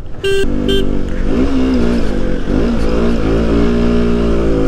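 Two short motorcycle horn beeps, the first longer than the second, then the KTM Duke 125's single-cylinder engine running, its revs rising and falling before settling steady.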